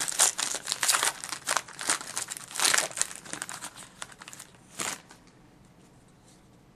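Wrapper of a hockey card pack being torn open and crinkled by hand: a dense run of crackles that stops about five seconds in.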